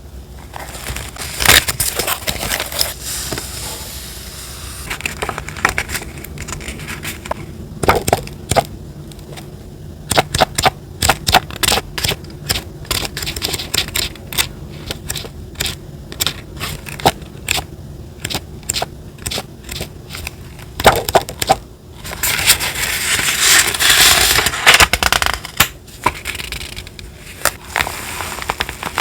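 Paper and sticker materials being handled for collage journaling: crinkling and rustling with many small sharp clicks and crackles, and a longer stretch of dense crinkling about three-quarters of the way through.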